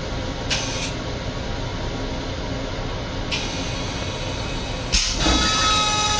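M7 railcar toilet flushing: about five seconds in, a sudden loud rush of water into the stainless-steel bowl with a whining tone, after two short hisses earlier. The steady rumble of the moving train runs underneath.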